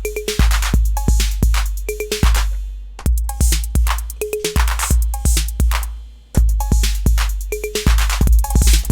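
TR-808-clone drum machine playing a beat: long, deep bass drum kicks tuned low, with hi-hat ticks, snare or clap hits and short pitched tom or conga notes. The pattern stops for a moment about six seconds in, then starts again.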